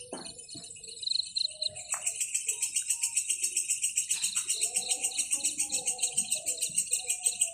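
Insects chirping in a rhythmic, high-pitched pulsing chorus. A louder trill of about seven pulses a second joins about two seconds in, over fainter lower calls.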